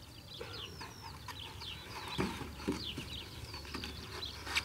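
Birds chirping and calling, many short quick notes overlapping, with a couple of soft knocks a little over two seconds in and a sharp click near the end.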